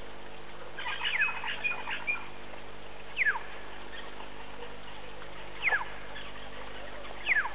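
Bird calls: a short burst of chattering notes about a second in. Then a clear whistle that falls in pitch, given three times roughly two seconds apart.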